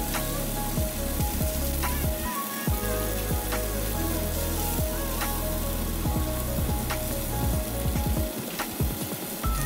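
Food sizzling in a hot pan as it is stirred, with scattered clicks of the utensil against the pan, under background music with held notes and a stepping bass line.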